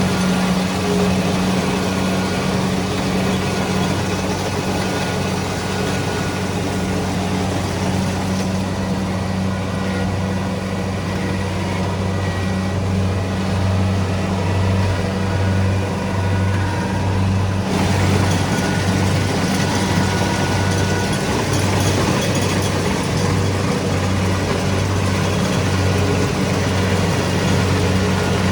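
Kubota DC-70 Pro combine harvester's diesel engine running steadily under harvesting load, a constant low drone with its threshing machinery.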